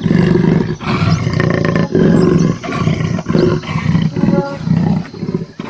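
A big cat roaring and growling in a run of loud, rough calls with short breaks between them.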